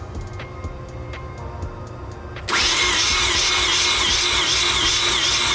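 Mazda RX-7 FD's starter cranking the 13B rotary engine with the plugs out for a compression test. It cuts in suddenly about two and a half seconds in, loud, with a whine that wavers up and down in pitch. The cranking is slow, which the owner puts down to a bad starter.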